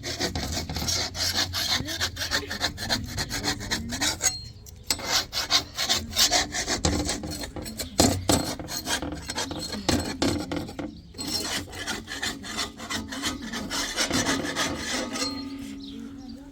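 Rapid rasping, scraping strokes in quick succession, of the kind made by hand food preparation such as grating or scraping vegetables. They pause briefly about four seconds in and again about eleven seconds in.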